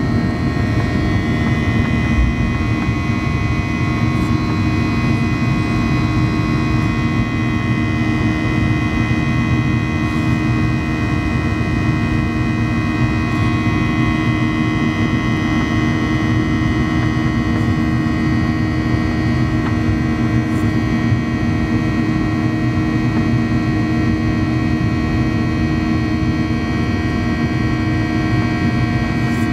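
Cabin noise of a Boeing 737-800 climbing out just after takeoff: its CFM56-7B turbofan engines running at high power, a loud, steady rushing noise with several steady humming tones over it.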